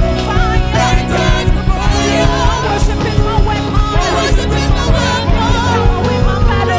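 Worship band music: singers holding melodic lines with vibrato over a full band with bass and drums.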